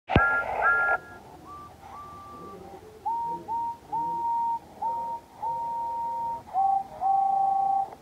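Steam locomotive whistles from animated engines, sounded one after another at falling pitch. After a sharp click at the very start, two high toots come with a hiss of steam, then about ten shorter and longer toots at lower pitches, each bending up slightly as it starts, the longest held for about a second.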